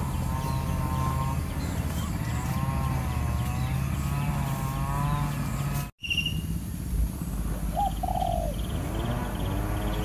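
A steady low motor hum with a wavering tone over it, which cuts off abruptly about six seconds in. After that, two short bird calls close together and a faint rapid high chirping.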